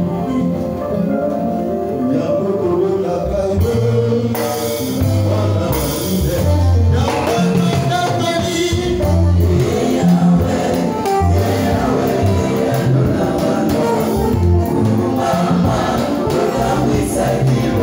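Live gospel worship song: a male lead singer sings into a handheld microphone, backed by a choir and a band with drum kit.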